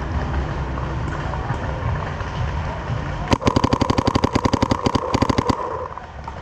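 A steady low rumble, then about halfway through a rapid string of paintball marker shots, roughly ten a second for about two seconds, with a steady tone under them.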